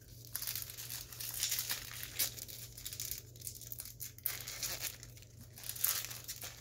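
Foil wrapper of a Topps Big League baseball card pack crinkling and tearing as it is peeled open by hand, in a string of irregular crackles.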